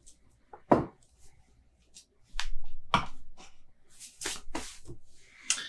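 Handling noises after a pour: a few sharp knocks and clicks as an aluminium beer can and a pint glass are moved and set down on a wooden tabletop, with a short rushing hiss about four seconds in.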